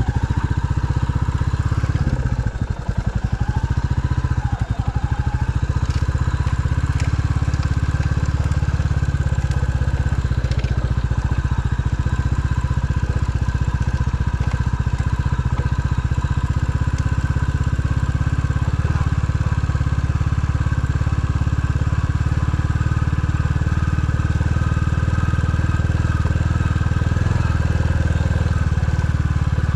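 A vehicle's engine running steadily under load, with a brief dip in level a couple of seconds in.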